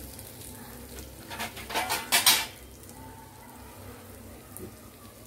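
Spiced eggplant slices frying in oil in a steel pan, a low steady sizzle with a short burst of louder crackling about one and a half to two and a half seconds in.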